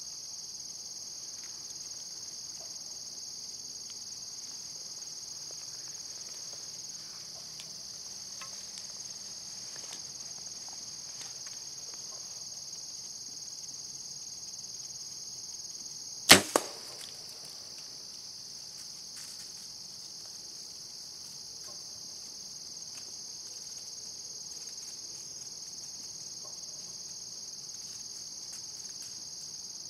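A single bow shot about halfway through: one sharp snap, followed a fraction of a second later by a second, smaller crack as the arrow strikes. Under it, crickets trill steadily.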